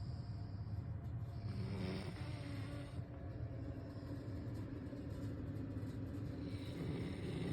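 A sleeping pet snoring, two slow snores about five seconds apart, over a steady low hum.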